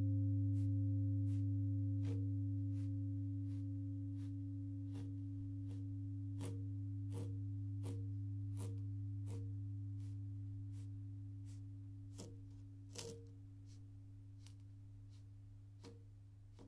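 A low humming tone with a couple of higher overtones, slowly fading away, over soft, short clicks about one and a half times a second.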